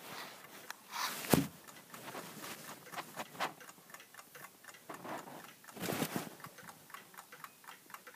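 1929 Waterbury wind-up pendulum clock ticking, with a few knocks and rustles from handling about a second in and around six seconds in.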